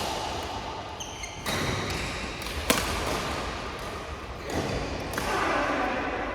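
Badminton rackets striking the shuttlecock during a doubles rally, with one sharp, loud hit about two and a half seconds in.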